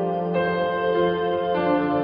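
Soft new-age style background music of sustained chords, shifting to a new chord twice.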